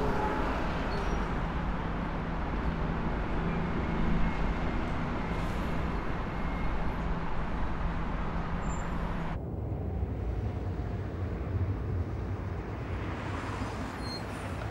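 Road traffic: a bus and other vehicles driving past with a steady engine hum. About nine seconds in the sound turns duller and lower, a moving vehicle's rumble heard from inside its cabin.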